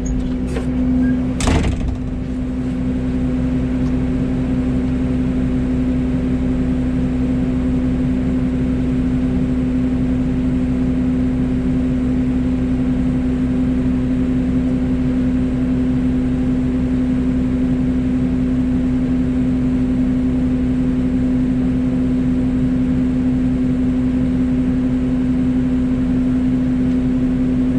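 Excavator's diesel engine and hydraulics running at a steady speed with a constant hum, with one sharp knock about a second and a half in.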